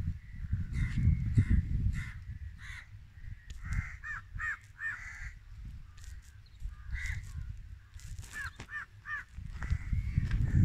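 Crows cawing over and over, several calls coming in quick runs of three. A low, buffeting rumble of wind on the microphone is heaviest near the start and end.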